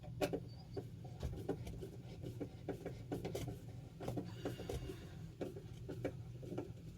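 Irregular small clicks, taps and scrapes of a fire alarm mounting bracket being screwed in by hand, over a steady low hum.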